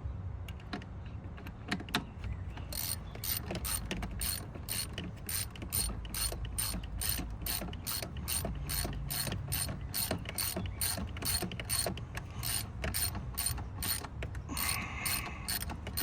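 Hand ratchet wrench clicking steadily, about three clicks a second, as a bolt is run in and snugged up; a few scattered handling knocks come before the clicking starts about two and a half seconds in.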